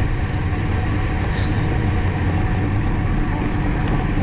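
Steady wind rushing over the microphone of a camera on a moving bicycle, a continuous low rumble mixed with road noise.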